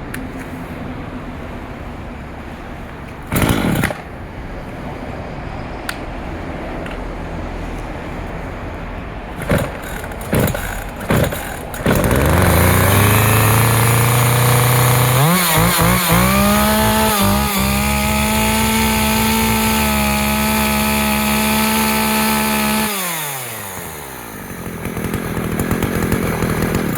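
Makita MEA4300L two-stroke chainsaw engine: a few short bursts of noise, then the engine starts about twelve seconds in. It is revved high and held steady for several seconds, then the throttle is released near the end and the revs fall away.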